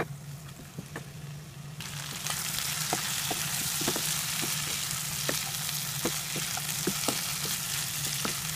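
Chicken pieces coated in spice masala sizzling in a nonstick pan as a spatula stirs and turns them, with light knocks of the spatula against the pan. The sizzle comes up about two seconds in and then holds steady.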